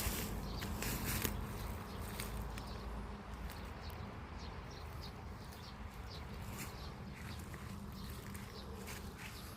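Steady low insect buzzing, with faint short ticks and chirps scattered through it.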